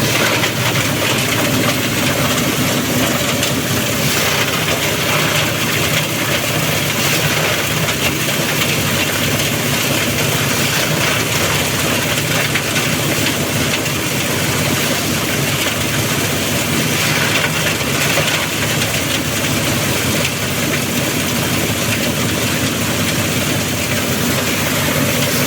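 Multipurpose shredder-grinder machine with steel shear blades running steadily while shredding dry leaves for compost.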